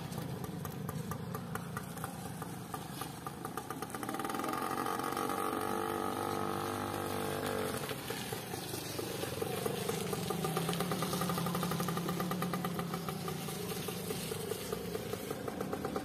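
Small single-cylinder engine of a TVS moped running as it is ridden away and back, its note rising and falling with the throttle. Its owner says it sounds normal for a TVS.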